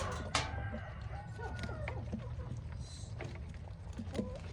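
Chickens and ducks feeding at a feeder: scattered sharp pecking clicks and short, soft clucking calls over a steady low rumble.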